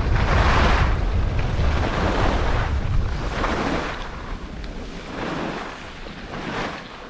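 Wind rumbling on the microphone of a skier moving downhill, with swells of hiss from skis sliding and turning on packed snow about every one and a half seconds. The wind rumble eases about halfway through.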